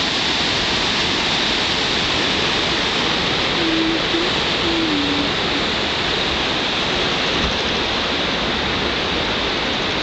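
Ocean surf breaking on a rocky shore: a steady, even rush of waves.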